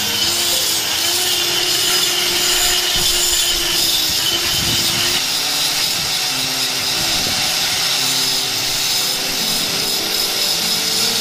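Handheld power tools grinding and cutting into marble: a steady, unbroken high whirring hiss of a spinning bit abrading stone.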